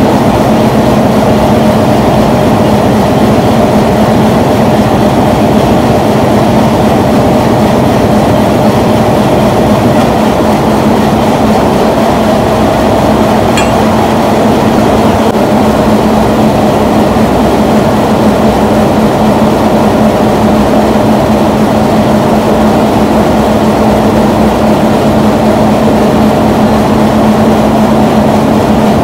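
Diesel locomotive engine running steadily: a constant drone made of a low hum with a fainter, higher steady tone above it.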